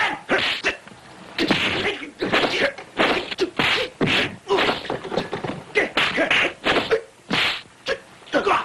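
Fight sound effects from a martial-arts film: a quick run of punch and kick whacks, about one every half second to second, mixed with short shouts from the fighters.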